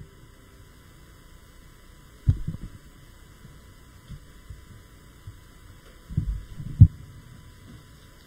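Low thuds and bumps picked up by the lectern microphone as people move at the stand: a cluster about two seconds in and another near seven seconds, ending in one sharp knock. Underneath runs a steady mains hum.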